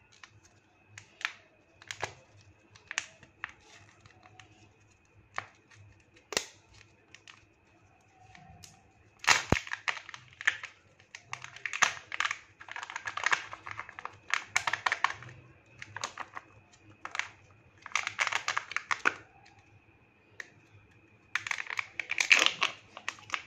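A plastic Kinder Joy egg being handled and opened, with scattered clicks and taps, then crinkling and tearing in several bursts as the sealed lids are peeled off its halves. A faint steady high whine runs underneath.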